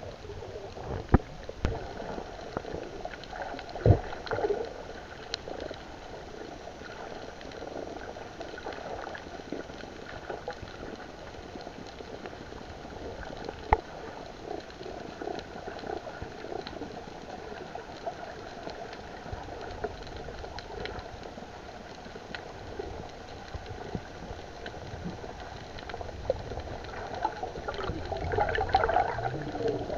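Underwater sound picked up by a submerged camera: a steady, muffled wash of water with a few sharp clicks, and louder bubbling near the end.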